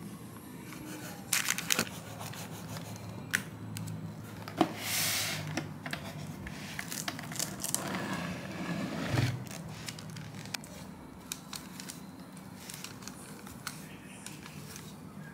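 Plastic cling film being pulled off its roll and torn off, then crinkling as it is pressed over and around a metal loaf pan, with a few sharp clicks and scrapes.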